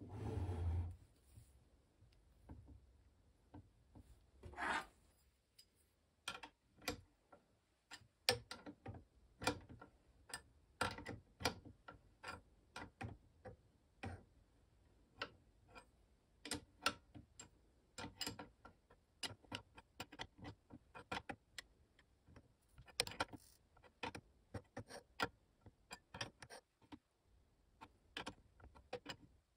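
Light, uneven clicks and taps of small metal rifle parts being handled, about two or three a second, as a barrel liner's collar nut is fitted and tightened by hand. A brief rub comes at the start and a short scraping rustle about five seconds in.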